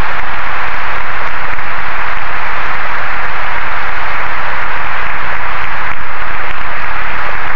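A large audience applauding, a steady, dense patter of clapping.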